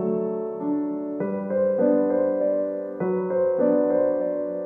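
Keyboard music, piano-like, playing slow sustained chords that change about every second.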